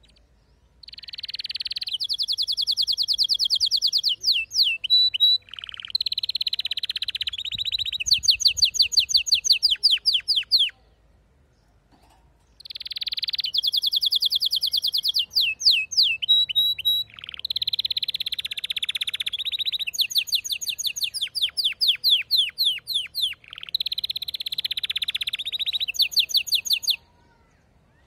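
Male domestic canary singing: two long song phrases, each a string of fast rolling trills and runs of repeated sweeping whistled notes, with a pause of about two seconds between them. The song stops shortly before the end.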